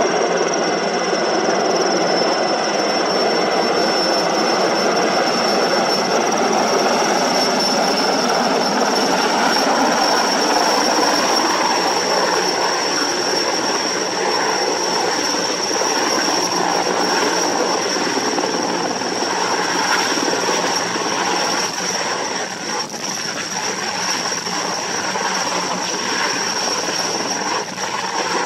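Erickson S-64 Air-Crane heavy-lift helicopter hovering low over water during a snorkel water pickup for firefighting. Steady rotor and turboshaft engine noise with a high, steady turbine whine.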